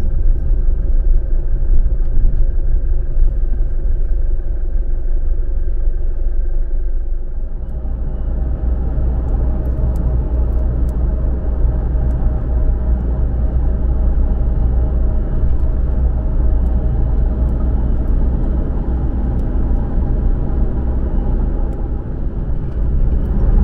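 Car road noise and engine hum heard from inside the cabin while driving at highway speed: a steady low rumble that deepens about seven seconds in.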